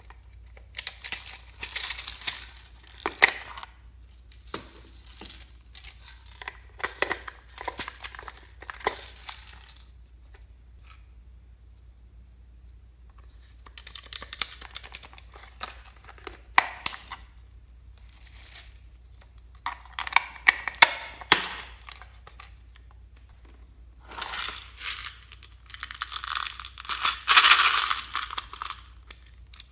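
Slime being squeezed and stretched by hand, crackling and popping in several bouts of a few seconds each with short quiet gaps between them.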